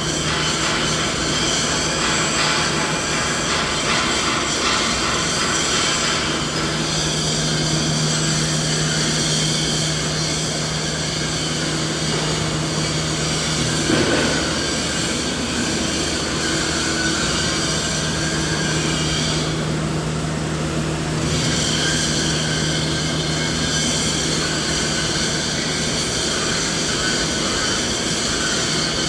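Steady machine drone: a continuous rushing noise with a low hum and several high, whining tones over it. The high tones drop out briefly about twenty seconds in, then return.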